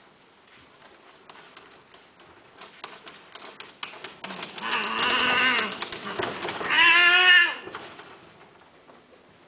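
Persian cats mating: two loud, drawn-out yowls about halfway through, the second higher and louder, the cry that comes at the end of a mating, with faint scattered clicks before them.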